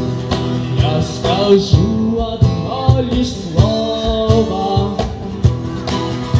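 Song music without words: guitar playing a melody over a steady beat.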